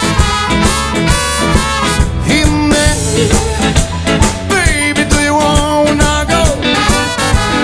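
A band playing upbeat music with brass horns over a steady drum beat.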